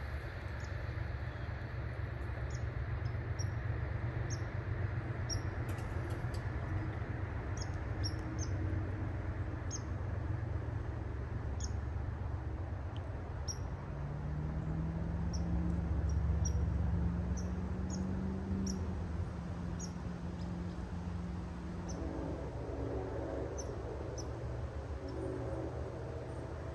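Small birds chirping in many short, high calls over a steady low rumble. About halfway through, a low hum swells and rises slightly in pitch for several seconds, then fades.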